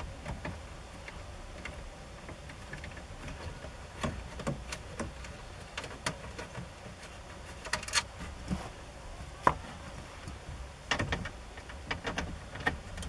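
Scattered clicks and light knocks of a hand driver working a 7mm screw out of the plastic lower dash trim, over a low steady rumble.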